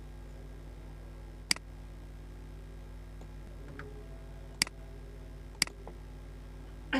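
Computer mouse clicking three times: once about a second and a half in, then twice a second apart past the middle. A steady low hum runs underneath.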